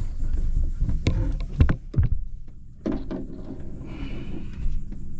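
Several knocks and thumps against the boat while a fish is handled for release, loudest one to two seconds in, over a steady low rumble.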